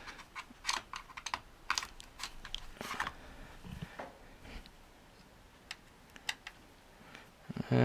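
Small sharp clicks and taps of a precision screwdriver and its Torx bits being handled, fitted into a screw head and swapped, dense for the first three seconds and then only a few scattered clicks.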